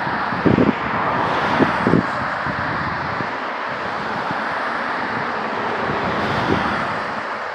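Steady rush of gusty wind on the microphone, with a few low buffeting thumps in the first two seconds as a thunderstorm's gust front blows through.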